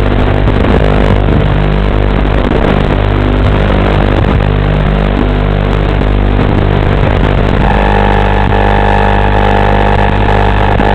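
Motors and propellers of a 6-inch FPV quadcopter buzzing loudly in flight, heard through a low-fidelity onboard recording. A higher, steadier tone joins about three-quarters of the way through.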